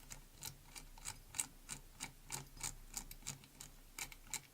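A run of small sharp clicks, about three a second and not quite even, from the opened lock being worked by hand.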